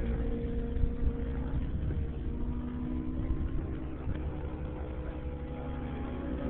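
Align T-Rex 700 nitro RC helicopter running at high power in 3D flight, its engine and rotor note dipping and rising in pitch as it manoeuvres.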